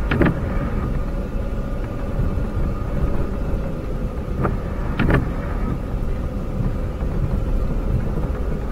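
Vehicle engine running steadily with road and tyre rumble, heard from inside the cabin. The windshield wipers sweep on an intermittent setting, each pass giving a pair of short thumps about half a second apart, roughly every five seconds.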